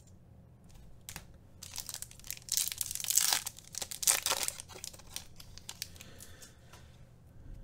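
A trading-card pack's wrapper being torn open and crinkled by hand, a run of rustling crackles that is loudest between about two and four and a half seconds in, then quieter handling of the cards.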